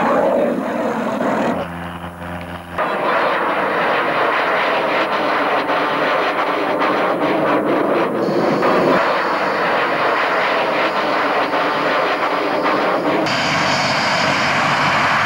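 Roar of an F/A-18 Hornet's twin jet engines as it flies overhead, broken briefly about two seconds in by a steadier humming engine. About thirteen seconds in it gives way to a Valmet Vinka trainer's propeller piston engine running on the ground, a steadier hum with a high whine.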